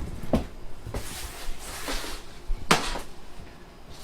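Knocks and bumps of a guitar amplifier head being handled and turned around, with rustling between them; the loudest thump comes a little under three seconds in.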